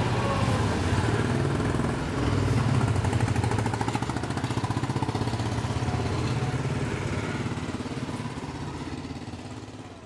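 A motor running steadily with a fast pulsing beat, fading out over the last few seconds.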